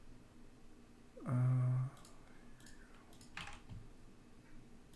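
A few scattered computer keyboard and mouse clicks, with a short vocal sound from the person at the computer about a second in.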